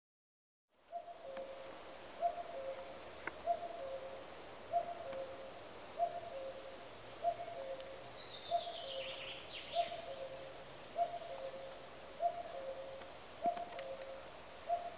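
A common cuckoo calling "cu-coo" over and over, a higher note falling to a lower one about once every second and a quarter. About halfway through, a smaller bird sings a brief falling song.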